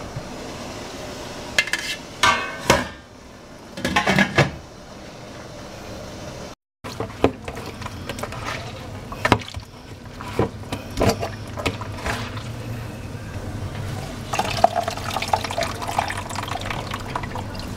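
Glass lid of a stainless steel steamer pot clanking a few times as it is handled. Then coconut milk being squeezed by hand from grated coconut in a cloth into a plastic bowl, with wet squelching and liquid trickling into the bowl.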